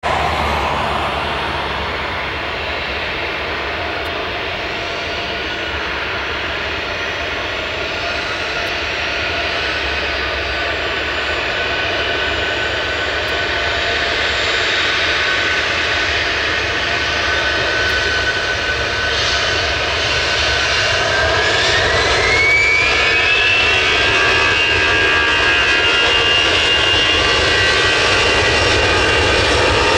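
Airbus A320's CFM56 turbofan engines running with a steady whine, then spooling up to takeoff thrust about two-thirds of the way through: the whine rises in pitch and holds higher, and the engine noise grows a little louder as the jet starts its takeoff roll.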